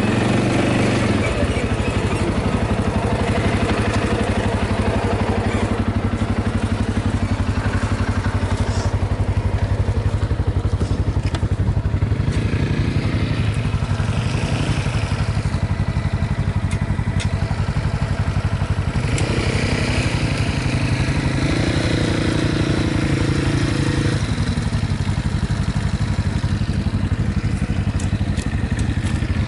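ATV engine running steadily under way, with a few clicks and rattles over it.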